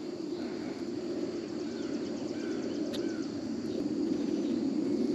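Outdoor ambience on the water: a steady low hum that slowly grows a little louder, with faint insect chirping, a few faint bird calls and a single click about three seconds in.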